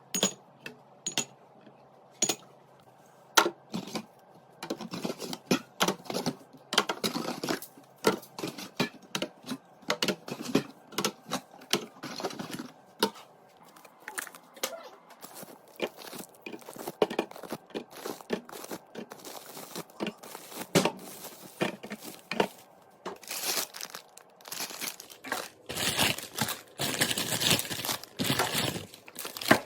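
Grocery packaging being handled while restocking: crinkling and tearing, broken up by sharp clicks and knocks of items being set down. The crinkling grows denser and louder in the last several seconds.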